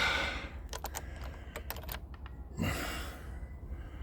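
Irregular light clicks and taps of a hand tool working at a Honda 9.9 outboard's spark plugs, with two breathy exhales of effort, one at the start and one near three seconds in.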